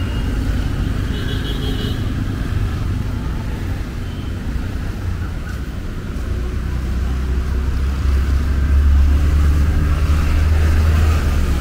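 City street traffic, with a motor vehicle's low engine rumble growing louder from about halfway through as it comes close.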